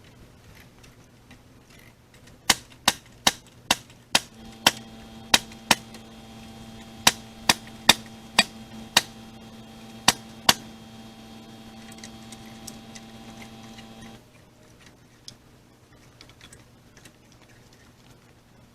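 Pneumatic framing nailer firing about fifteen times in quick succession, two or three sharp shots a second, driving 3.5-inch smooth-shank nails into the header. A steady motor hum runs under the later shots and cuts off suddenly about fourteen seconds in.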